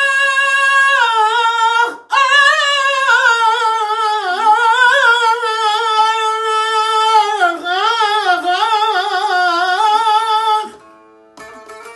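A man sings an Urfa-style uzun hava gazel in a high voice, first holding one long note, then winding through heavily ornamented runs with vibrato, with a short breath about two seconds in. The singing stops near the end, and a bağlama (long-necked saz) begins plucking quietly.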